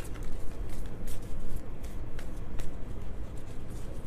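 A deck of tarot cards being shuffled by hand: a run of irregular card flicks and slaps, two or three a second.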